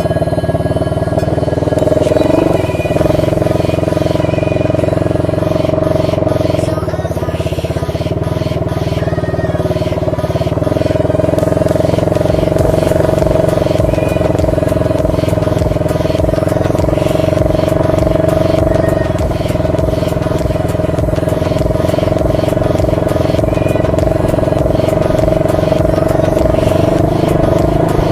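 A 125cc ATV's single-cylinder engine running at a steady pace while being ridden. The engine note shifts slightly about ten seconds in.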